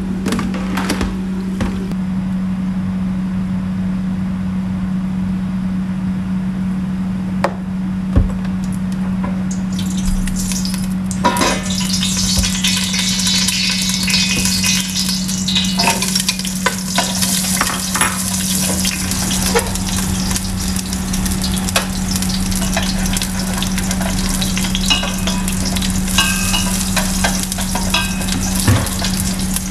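Oil sizzling in a stainless steel pot on the stove, strongest from about ten seconds in, as chopped pieces fry and are stirred with wooden chopsticks, with light clicks. A steady low hum runs underneath.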